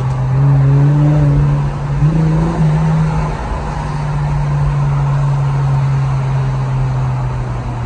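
Infiniti Q50's twin-turbo V6 heard from inside the cabin under light throttle in traffic: a steady low drone over road noise, its pitch stepping up slightly twice in the first three seconds, then holding level.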